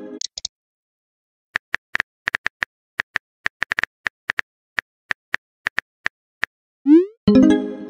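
Phone keyboard typing clicks: short, sharp taps at an irregular pace of a few a second as a text message is typed. Near the end a rising swoop and a short chiming chord sound as the message is sent.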